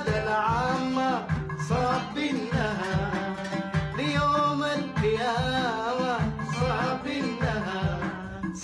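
A man singing while plucking an oud, accompanying himself with a steady run of quick plucked notes under a wavering sung melody.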